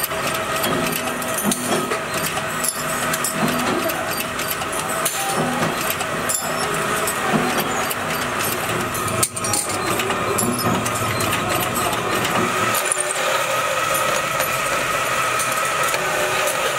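Metalworking machinery running steadily while oil-filter end caps are stamped and turned, with a sharp metal clank every few seconds. A steadier, higher machine hum takes over in the second half.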